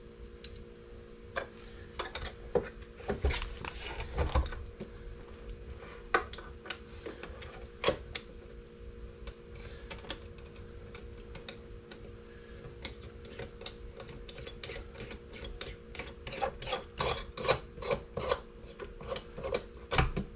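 Plastic outer ring of an Advanblack 8-inch speaker lid being twisted and pressed into place by hand, making an irregular run of small clicks and rubbing, thickest in the last few seconds as it seats.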